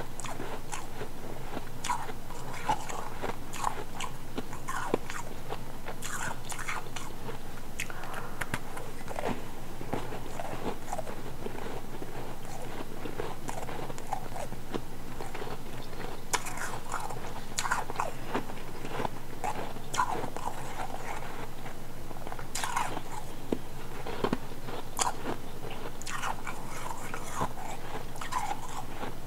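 Close-miked biting and chewing of chunks of ice: a person crunching through hard ice in many short, irregular crunches.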